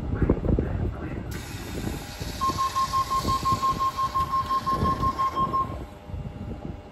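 Sydney Trains suburban electric train's door-closing warning: a rapid string of high beeps lasting about three seconds while the doors slide shut.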